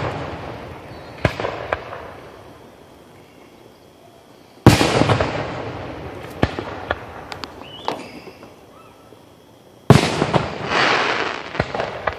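Aerial firework shells bursting. It opens with the fading echo of an earlier burst, then two heavy booms come about five seconds apart, each trailing off in a long rolling echo, with sharper cracks and pops between them.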